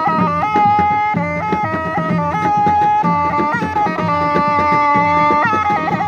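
Traditional shawm, a wooden double-reed horn with a lip disc and flared bell, playing a loud reedy melody that steps between a few held notes, over a steady drum beat.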